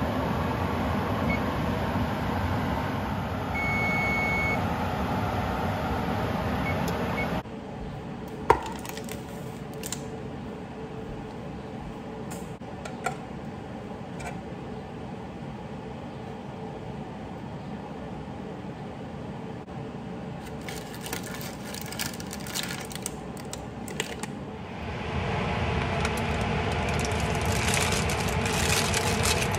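An electric oven's control panel beeps once, a steady high tone about a second long, over a steady low hum. Later come scattered light clicks and taps of a knife against a metal loaf pan, then parchment paper crinkling as the baked loaf is handled.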